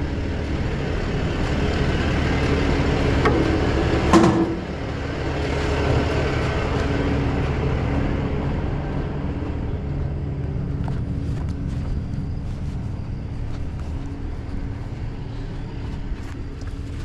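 A truck engine idling steadily, with one sharp clank about four seconds in and light clicks and knocks of handled gear later on.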